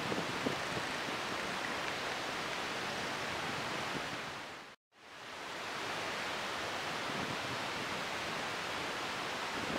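Steady outdoor background noise, an even hiss with no distinct events. About halfway through it fades out to silence for a moment and fades back in.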